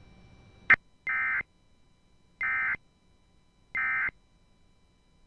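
Three short bursts of Emergency Alert System data tones, the end-of-message code that closes an alert broadcast, each about a third of a second long with about a second between them. A sharp click comes just before the first burst.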